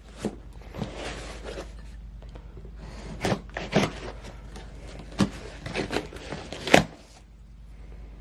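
A package being handled and opened: rustling with a string of sharp knocks and clicks, over a steady low hum.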